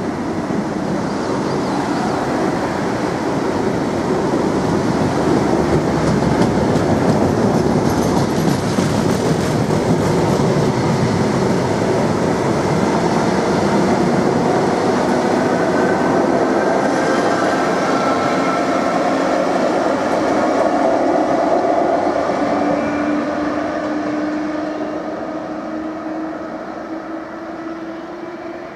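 Greater Anglia Mark 3 coaches running past at speed, steel wheels rumbling and clattering on the rails. Near the end a steady hum comes in as the Class 90 electric locomotive at the rear goes by, and the sound then fades as the train moves away.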